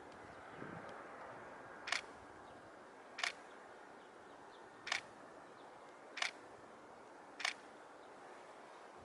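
A camera shutter clicking five times, each a sharp single click about one to one and a half seconds apart, over a steady faint outdoor hush.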